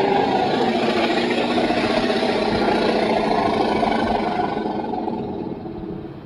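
Imagined diplodocus call made from layered animal sound effects (elephant, mammoth, camel): one long, loud, low rumbling bellow that slowly fades near the end.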